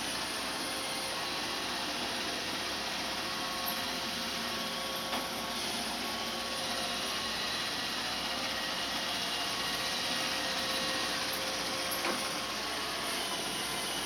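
Roomba robot vacuum running over carpet: a steady whir of its motor and brushes with a faint whine, and a few light knocks.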